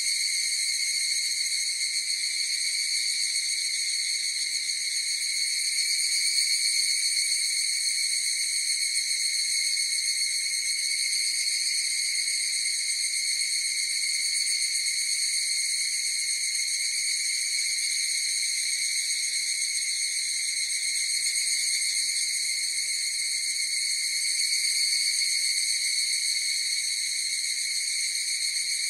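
Chorus of higurashi (evening cicadas) calling: a steady, unbroken high-pitched ringing that hardly changes in loudness.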